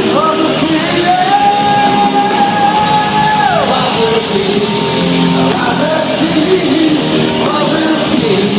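Live rock band playing, electric guitar and drums with shouted singing, in a large hall. A long high note is held for a couple of seconds about a second in, then slides down.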